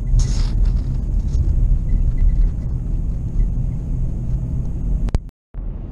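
Steady low rumble of a car's engine and tyres on the road, heard from inside the cabin while driving. There is a short hiss just after the start. Near the end a couple of clicks come, then the sound cuts out for a moment before the rumble resumes.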